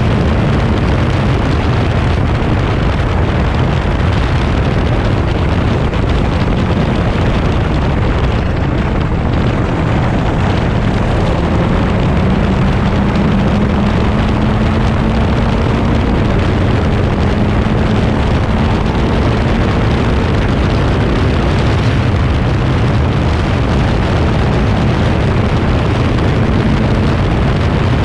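Onboard sound of a Crossle 32F Formula Ford's 1600 cc Ford Kent four-cylinder engine running hard under heavy wind rush on the microphone, loud and steady. The engine note climbs a little near the middle and then holds.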